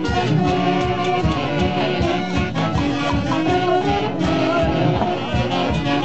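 A live Peruvian dance band (orquesta) with saxophones playing a dance tune over a steady drum beat.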